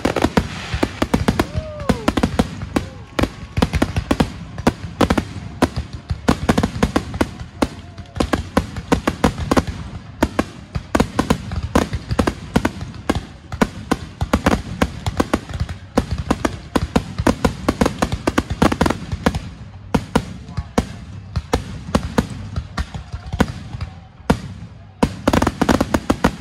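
Aerial fireworks display: a rapid, continuous barrage of shell bursts, bangs and crackling, thinning a little near the end before one more strong burst.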